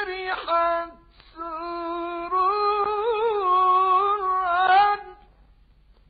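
A high solo voice sings an unaccompanied Egyptian tawashih (Islamic devotional chant) in long, ornamented melismatic phrases, from an old recording with a narrow, muffled sound. There is a short break about a second in, and the phrase ends about five seconds in.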